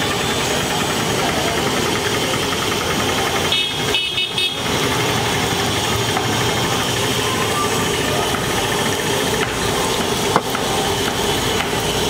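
Hot oil sizzling steadily as battered green chillies (mirchi bajji) deep-fry in a large kadai, over street traffic noise. A vehicle horn sounds briefly about four seconds in, and there is a single sharp knock near the end.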